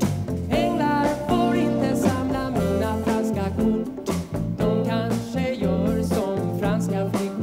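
A man singing a Swedish pop song in a light tenor voice, with instrumental accompaniment.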